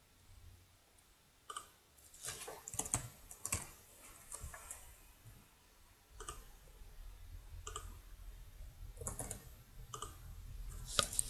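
Computer keyboard keys tapped in short runs, with a few mouse clicks, as a login number and password are typed in.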